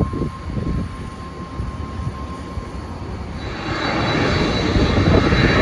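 Jet airliner engines: a low rumble that swells about three seconds in, growing louder with a steady high whine on top.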